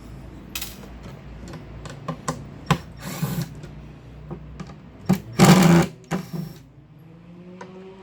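Power drill/driver running with a steady motor hum while backing screws out of a wooden shipping crate. Clicks and knocks come through, and a loud noisy burst about five and a half seconds in. The hum stops about six and a half seconds in.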